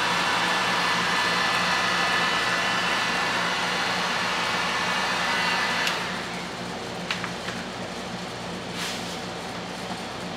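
A steady whirring motor-driven blower running, which cuts off about six seconds in, followed by a few light clicks and taps.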